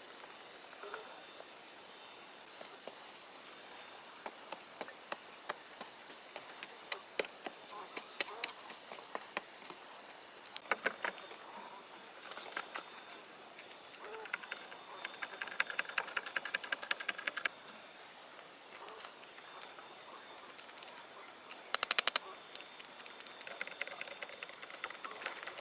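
Irregular sharp knocks and clicks, with a fast rattling run about two-thirds of the way in and a loud cluster of knocks near the end, over a faint steady background.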